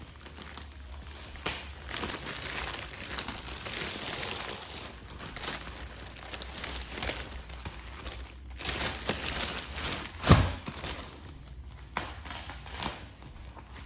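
Plastic wrapping of a bulk pack of toilet paper crinkling and rustling as it is handled and opened, with one sharp thud about ten seconds in.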